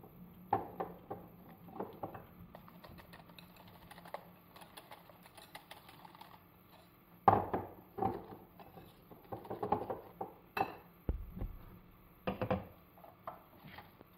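A wire whisk ticking quickly against a glass bowl as an egg and flour mixture is beaten. About halfway through a metal saucepan and sieve clatter against the bowl, the loudest sound, followed by more knocks and clinks of kitchenware.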